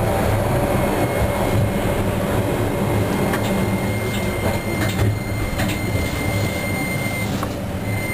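Toyohashi Railway T1000 low-floor tram running on street track, heard from inside the car: a steady rumble of wheels and running gear, a whine from the drive that falls slightly in pitch in the first second or so, and occasional clicks from the wheels over the rails.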